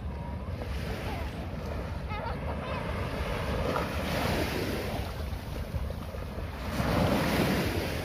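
Small waves washing up on a sandy beach, with wind buffeting the microphone. The surf swells about four seconds in and again, louder, near the end.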